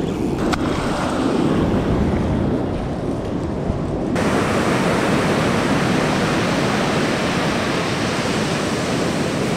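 Ocean surf washing up a sandy beach, a steady rushing wash with wind on the microphone. About four seconds in the sound shifts abruptly to a brighter, hissier wash.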